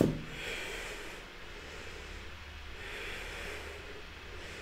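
A woman's slow, audible breathing, two long breaths swelling and fading, over a low steady hum.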